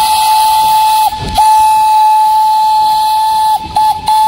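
Steam-train whistle sounding one steady note in toots: a long blast, a short break about a second in, another long blast, two quick short toots near the end, then another long blast, with hissing behind it.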